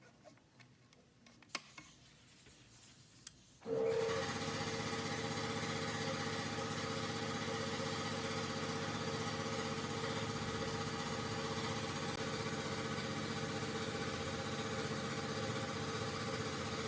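A few light clicks, then about four seconds in an electric motor switches on and runs at a steady speed, with a strong hum and hiss.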